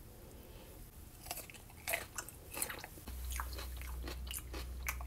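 A person biting into and chewing a crisp pickled cucumber slice, with a run of irregular crunches starting about a second in. A low hum comes in about three seconds in.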